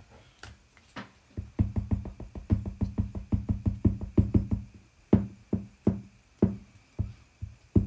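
Embossing dabber tapped repeatedly onto a surface: rapid dull taps, several a second, in runs with short pauses, starting after about a second and a half of quiet.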